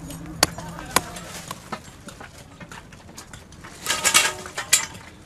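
Tent being pitched: three sharp knocks about half a second apart in the first second, then a loud rustle of tent canvas about four seconds in, with faint voices behind.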